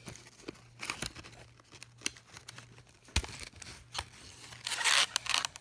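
Fidget spinner packaging being opened by hand: scattered clicks and crinkles, a sharp click about three seconds in, and a louder stretch of rustling and tearing near the end.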